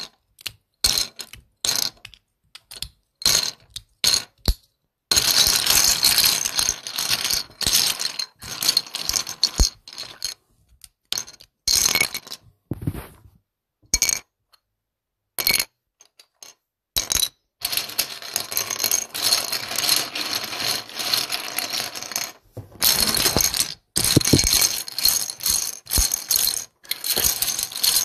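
Plastic LEGO bricks clicking and clattering against each other. There are separate clicks at first, then long stretches of dense rattling, like a pile of bricks being stirred, broken by a few short pauses.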